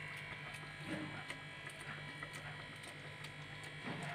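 Steady low electric buzz of a motor running in the background, with faint rustles and soft taps as a handful of chopped fresh coriander is sprinkled over the curry in the pot.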